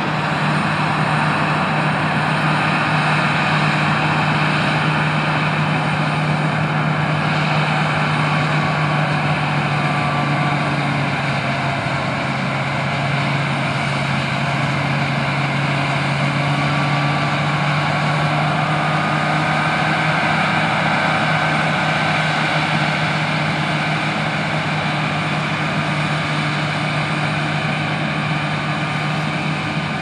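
Combine harvester and grain-cart tractor running steadily in the field: a continuous engine drone with a steady low hum.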